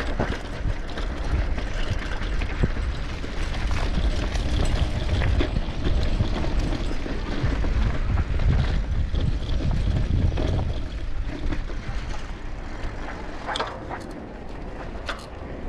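Wind rumbling on the microphone while riding a bicycle, heaviest in the middle stretch, with scattered clicks and rattles from the ride.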